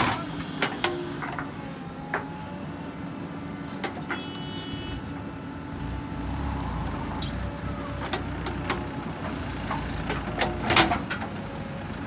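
JCB 3DX backhoe loader's diesel engine running steadily under hydraulic load as the arm dumps earth into a tractor trolley and swings back, with scattered clanks and knocks. A deeper engine rumble builds about halfway through as the loaded tractor pulls away, and a sharp knock near the end is the loudest sound.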